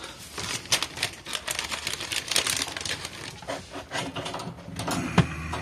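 Rapid, irregular clicking and rattling from hard objects being handled.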